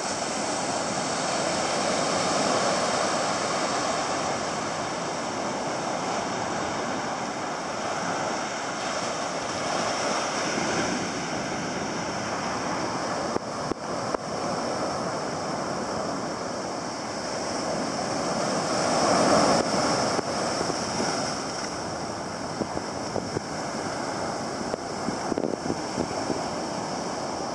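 Small ocean waves breaking and washing up a sandy beach, a steady surf wash that swells and eases with each wave, loudest about two-thirds of the way through.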